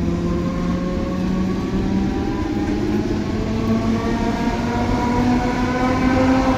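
ER9T electric multiple unit's traction motors whining over running rumble, the whine rising steadily in pitch as the train gathers speed.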